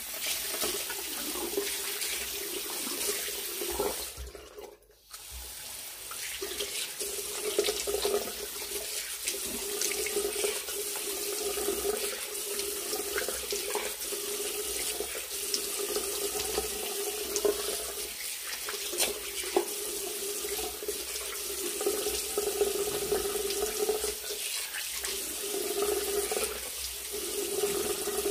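Water running from a tap into a bathroom sink while a face is rinsed of foaming cleanser, with irregular splashes as water is scooped onto the face. The flow drops away briefly about four seconds in, then carries on.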